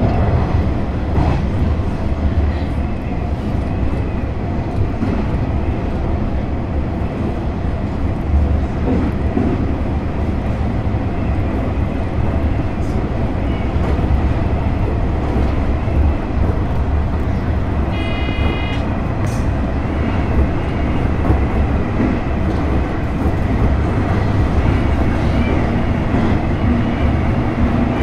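JR West 103 series electric train running along the line, heard from the cab as a steady low rumble of wheels and running gear. A short high ringing tone sounds about two-thirds of the way through.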